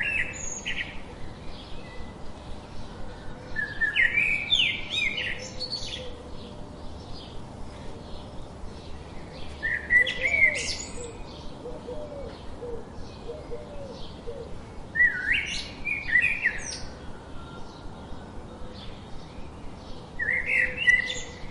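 A bird singing short chirping phrases, repeated about every five seconds, over a faint rapid ticking.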